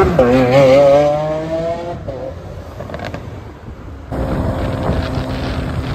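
Lamborghini Aventador S V12 with a Balboni aftermarket exhaust accelerating hard past: a quick upshift drops the revs right at the start, then the pitch climbs again with a wavering note and fades as the car pulls away. About four seconds in, the sound cuts to a steady low drone with wind noise.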